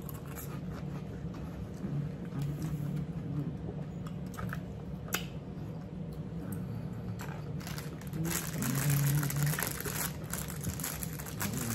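Close-up chewing and crunching of cucumber salad and crackers, with short clicks of bites scattered through. From about eight seconds in, a denser rustle of a plastic bag being handled.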